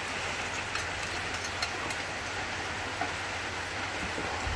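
Steady low rumble and hiss of workshop background noise, with a few faint light clicks as the metal luggage rack and its bolts are handled.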